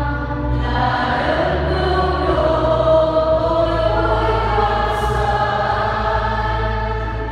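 A church congregation singing a sung response in Vietnamese together, led by a choir director, in slow held notes.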